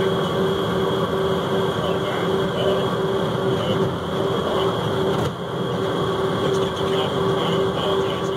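Cab noise of a truck cruising at highway speed: steady engine drone and road rumble, with a low hum that pulses a few times a second.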